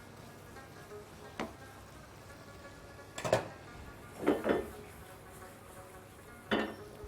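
A cooking utensil knocking against a pan as rigatoni in a tomato-cream sauce is stirred: a few sharp knocks, two of them in quick succession in the middle, over faint background music.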